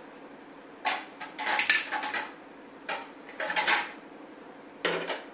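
A white plastic spoon stirring a sprouted moong salad in a bowl, scraping and clicking against the bowl in about five short bouts.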